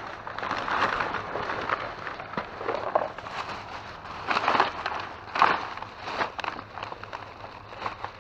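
Plastic bags and loose trash crinkling and rattling as hands rummage through them, in irregular swells with scattered clicks.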